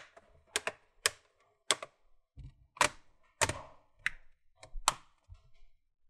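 Plastic snap clips of an Asus X507M laptop's top case clicking into the bottom cover as the two halves are pinched together, a string of sharp separate clicks about every half second, some louder than others.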